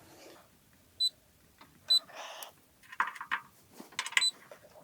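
Multimeter in capacitance mode giving three short high beeps while measuring a run capacitor's microfarads, with clicks and rustle from handling the test leads between them.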